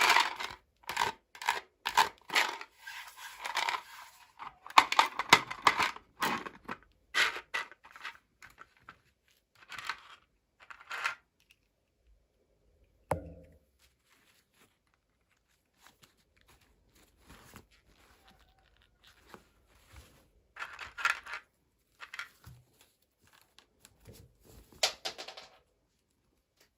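Packaging being torn open and crinkled by hand in short, irregular rustling bursts. The bursts come thick and fast for the first several seconds, then grow sparse. A single sharp knock falls about thirteen seconds in.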